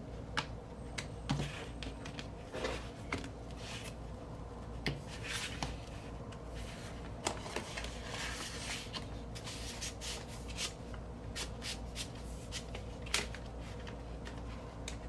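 A vinyl record being slid into a plain white paper sleeve and the sleeve handled: scattered paper rustles and light taps, with a longer stretch of rustling sliding about halfway through.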